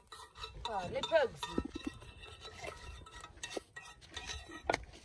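Scattered light clinks and knocks, with a brief voice about a second in.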